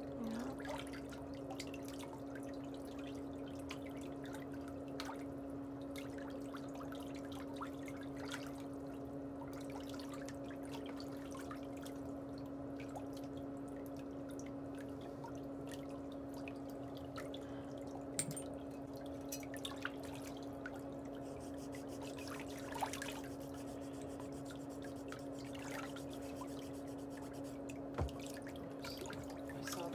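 A steady low hum runs throughout, with faint clicks scattered over it.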